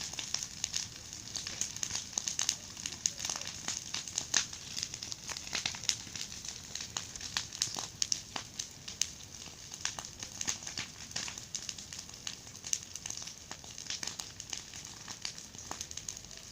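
Large bonfire burning, its wood crackling and popping irregularly over a steady hiss of flame.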